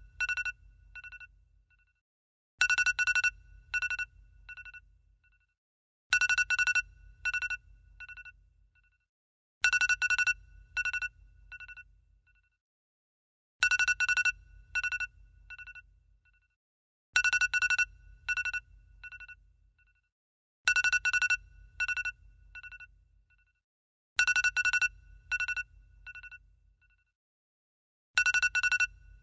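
iPhone ringtone ringing over and over. Each ring is a loud burst of rapid strikes trailing off into quieter ones, repeating about every three and a half seconds.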